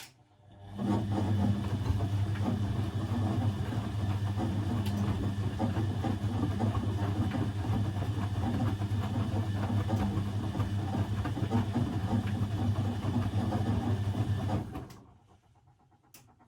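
Blomberg 240W washing machine's motor turning the drum during a wash: a click, then about fourteen seconds of a steady low hum with noise over it, which stops suddenly. A couple of faint clicks come near the end.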